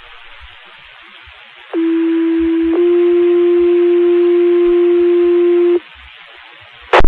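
Fire department two-tone sequential pager alert over the dispatch radio: a low tone for about a second, then a slightly higher tone held about three seconds, setting off the volunteers' pagers. Radio static hiss comes before and after the tones, with a short sharp burst of static near the end.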